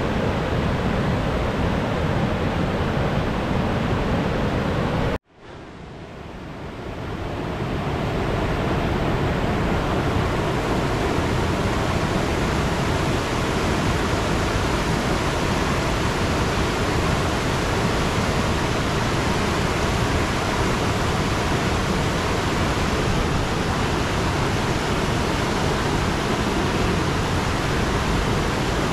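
Steady rush of falling water from a waterfall. It cuts out abruptly about five seconds in and fades back up over the next couple of seconds.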